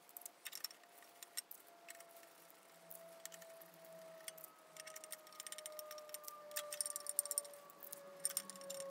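Small metal parts and hand tools clinking and jingling, irregular light metallic clicks that get busier in the second half. A faint steady tone glides slowly lower underneath.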